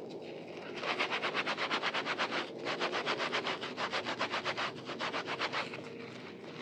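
Soapy kitchen sponges rubbed briskly together by hands in a basin of lather, working up soaked white bar soap. Quick, even rubbing strokes come in three runs with short pauses between them.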